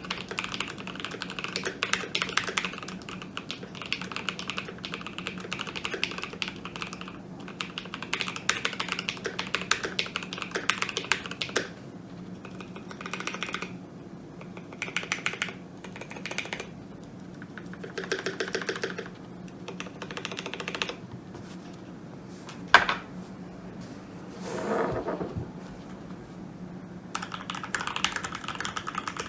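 Typing on a computer keyboard: bursts of rapid keystrokes separated by short pauses, with one sharper single strike about 23 seconds in, over a steady low hum.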